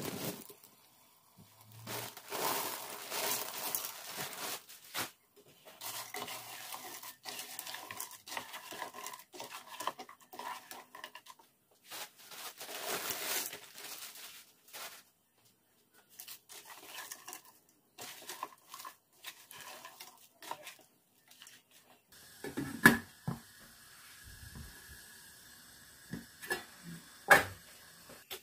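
Crinkling plastic bag of frozen sliced green beans, then the beans going into a pan of curry sauce and being stirred with a spatula. Near the end come sharp knocks of a utensil on the pan, two of them loud.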